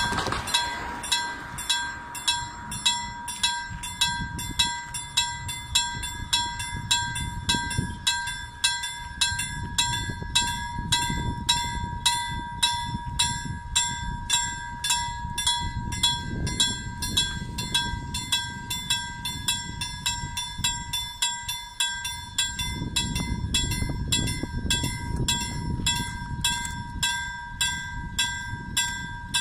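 Finnish level-crossing warning bell ringing in an even rhythm, a little faster than once a second, as the crossing closes for an approaching train. A low rumble rises and falls underneath.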